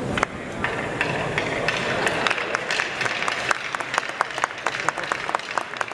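Crowd applauding, with many individual claps that grow sparser and quieter near the end.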